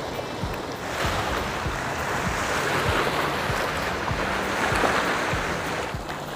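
Choppy sea waves washing against shore rocks in a strong wind, swelling about a second in and easing off near the end, with wind buffeting the microphone.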